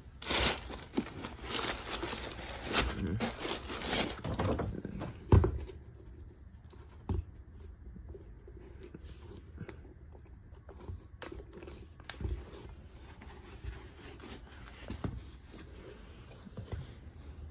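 Tissue paper rustling and crinkling as a sneaker is pulled out of its packed shoe box, ending in a loud thump about five seconds in. After that, quieter handling with a few light knocks.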